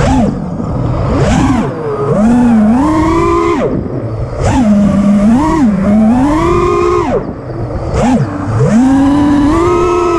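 FPV freestyle quadcopter's four brushless motors and propellers whining, heard through the onboard camera's microphone over rushing wind noise. The pitch swoops up and down constantly with the throttle and drops away sharply several times as the throttle is cut, then climbs back.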